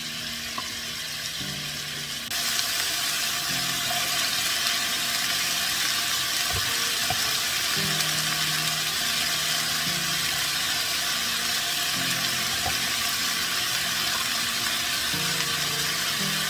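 A steady, even hiss that starts suddenly and gets louder about two seconds in.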